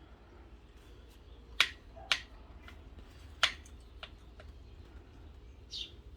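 Cutlery clicking against plates while eating, three sharp clicks within the first few seconds, then a few fainter ticks.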